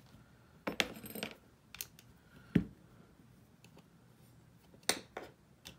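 Light metal clicks and clinks from a pressure gauge and a paintball high-pressure regulator being handled and turned by hand: a cluster about a second in, one duller, louder knock in the middle, and a couple more near the end.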